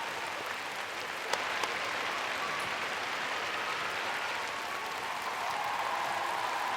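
Large arena crowd applauding steadily, with one sharp click about a second in.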